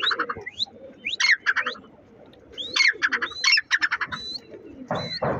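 Grey francolin calling: shrill notes that sweep quickly upward, each followed by a run of rapid pulses, in three bouts.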